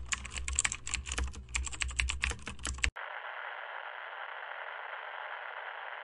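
Rapid, irregular clicking and tapping over a low rumble, stopping suddenly about three seconds in. A steady, even hiss follows.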